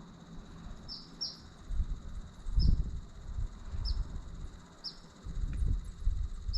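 Short, high, squeaky chirps about once a second from bats roosting in a crack under the bridge, over low rumbling thumps on the microphone.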